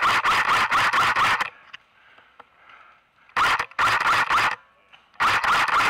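Airsoft DMR rifle firing rapid shots, about six a second, each shot with a short rising whine. A long string stops about one and a half seconds in, followed by two short bursts of four or five shots each.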